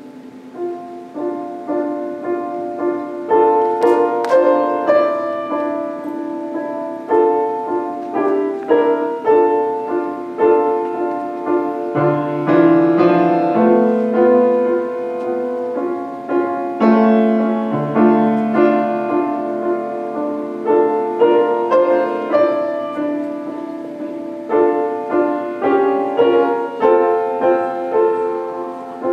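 Solo grand piano played, starting about a second in: a melody moving over steadily repeated middle notes.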